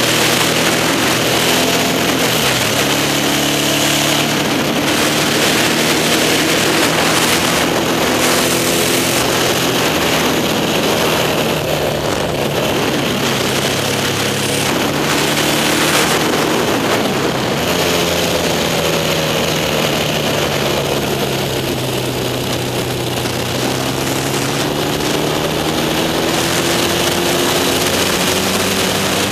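Yamaha XS650 parallel-twin engine of a vintage racing sidecar outfit running hard under race load, heard from on board: its pitch climbs and drops back in steps as it shifts gears, falls away through a long stretch and climbs again near the end, with steady wind and road rush underneath.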